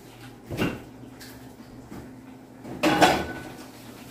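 A drinking glass being handled and set down: two knocks, a small one about half a second in and a louder one about three seconds in, over a steady low hum.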